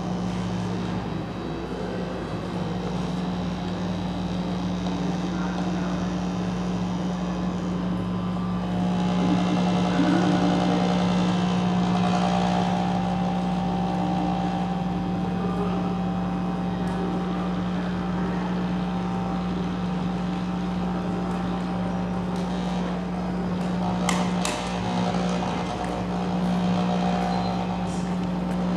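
Steady machine-like drone with a strong constant low hum, swelling a little about a third of the way in, with a few sharp clicks near the end.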